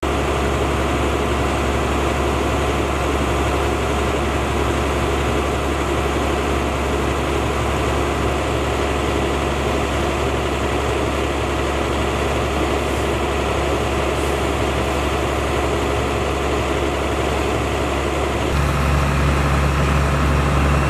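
Heavy diesel engine of a fire truck running steadily at idle. It grows a little louder, with a stronger low hum, near the end.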